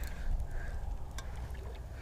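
Wind buffeting the microphone as a steady low rumble, with a few small knocks and clicks from the boat.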